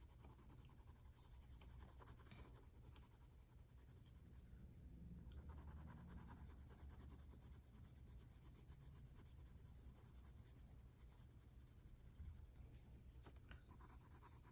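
Faint scratching of a Prismacolor colored pencil shading on paper with light pressure.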